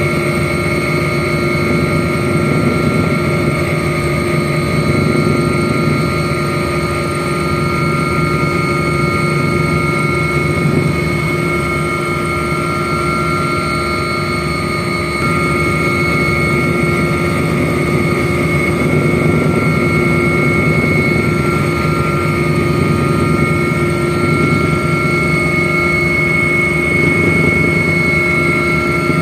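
Aircraft engine noise heard from inside the cabin: a steady, loud drone with constant high-pitched whining tones over a low rumble.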